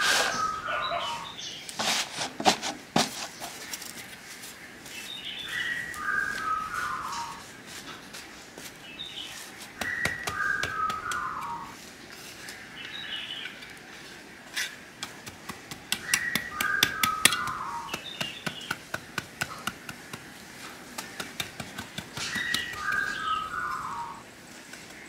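Loose soil poured into a plastic crate and spread with a trowel: clods pattering and the trowel scraping and tapping in spells, with the most clicks near the start and around the middle. A bird repeats a short falling song phrase about every six seconds.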